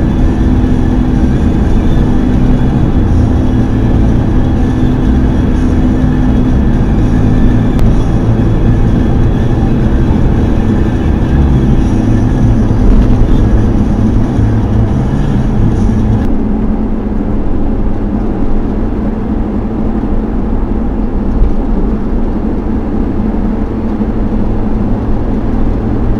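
Steady road and engine rumble inside a car cruising on a motorway, as picked up by a dashcam. About 16 seconds in, the higher hiss suddenly drops away and the low rumble carries on.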